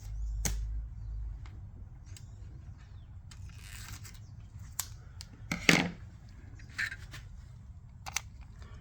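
Scissors snipping a few times to cut a small piece of adhesive tape, with short handling clicks and a brief rustle between the cuts.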